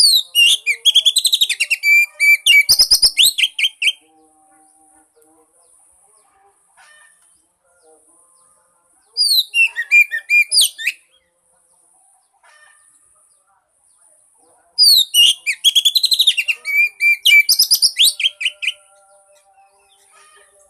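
Oriental magpie-robin (kacer) singing: three bursts of rapid, varied high whistled phrases, each a few seconds long, with pauses of about five seconds between them.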